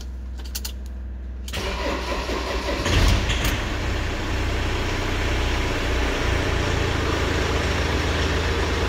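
Ford Transit van engine: a few clicks of the ignition key, then cranking that catches about three seconds in and settles into a steady idle. The van has a starting fault that is caused by a faulty ignition switch contact.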